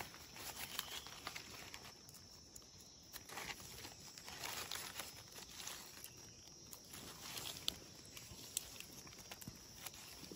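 Dry leaf litter rustling faintly as mushrooms are picked by hand from the forest floor, with scattered small clicks and crackles.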